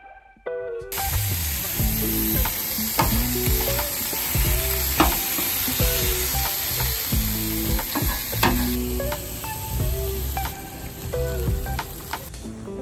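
Taco meat frying in a pan: steady sizzling that starts about a second in, with sharp clicks as it is stirred.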